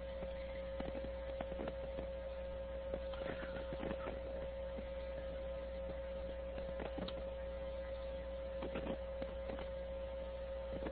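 Steady electrical hum with a constant high-pitched whine, and scattered faint clicks, from an open audio line.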